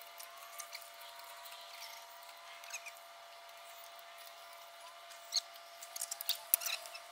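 Hand tools clicking and tapping on metal in a truck's engine bay, a few scattered ticks and then a quick run of sharp clicks in the last two seconds.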